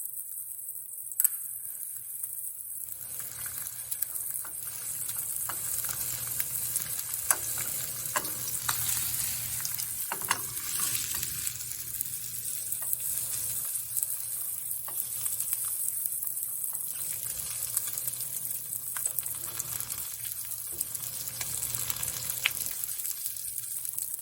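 Chicken thighs pan-frying in a little oil: a steady sizzle with crackling spatter and a few sharp clicks scattered through.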